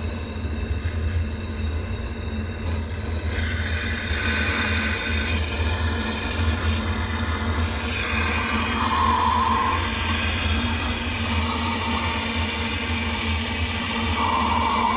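Handheld propane torch running steadily, a continuous rushing hiss of its flame as it lights kindling in a wood stove's firebox.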